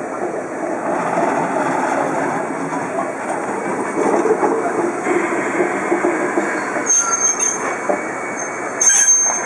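ED90 Abt rack electric locomotive moving slowly up to a train, with running gear rumbling and high wheel or brake squeals. About 9 s in, a sharp metallic clank as its coupler meets the train's.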